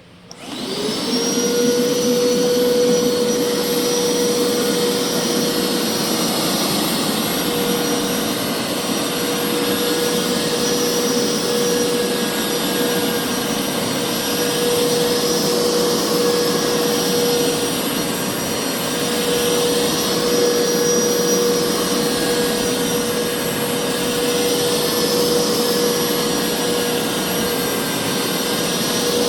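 Hoover carpet cleaner's motor switching on and spinning up, its whine rising in pitch within the first second, then running steadily with a high whine and rushing air.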